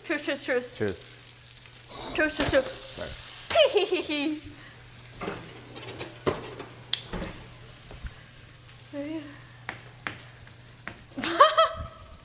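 Food sizzling as it fries in a pan, with a few sharp utensil knocks in the middle. Short bursts of raised voices come near the start, a few seconds in, and near the end.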